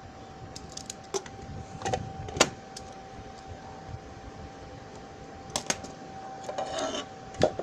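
Small scissors snipping through the clear plastic seal stickers on a plastic-windowed box: a string of sharp clicks and snips, the loudest about two and a half seconds in. The plastic packaging crinkles briefly near the end.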